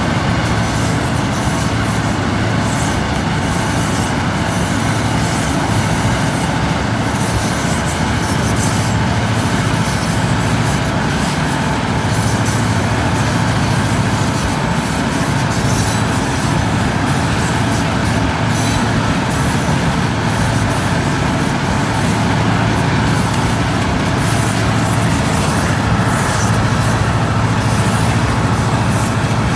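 Central Oregon and Pacific freight train moving at speed, its diesel locomotives running under power with a steady low drone, heard from a car pacing alongside with road and wind noise mixed in.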